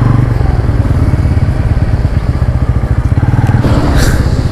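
Motorcycle engine running steadily with a fast, even firing beat.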